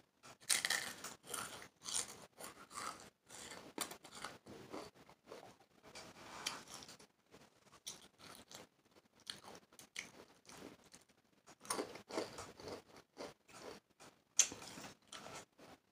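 Takis rolled tortilla chips being chewed, a quick irregular run of crisp crunches.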